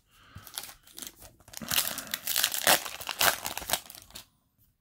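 Foil wrapper of a Yu-Gi-Oh! booster pack crinkling as it is handled and torn open by hand, a dense run of crackles that stops shortly before the end.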